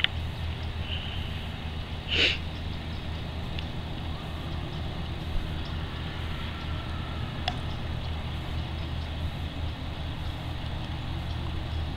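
Steady low machine hum, like an engine running. Over it come a few faint sharp clicks as the dogs gnaw on sticks, and one short, louder rasping sound about two seconds in.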